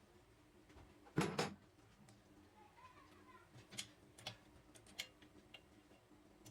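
A few scattered light clicks and knocks, with a louder double knock about a second in.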